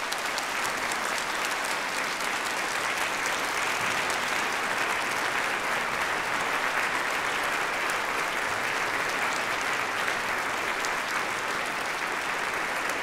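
A large congregation applauding steadily: many people clapping at once in a standing ovation, with sustained, even applause.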